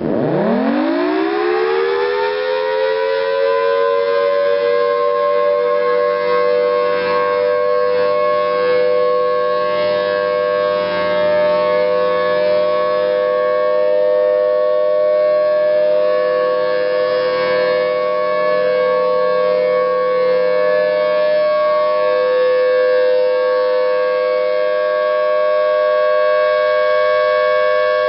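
Federal Signal Thunderbolt 1000T tornado warning siren winding up, its pitch rising quickly over the first three seconds, then holding a steady two-tone chord at full volume during a siren test.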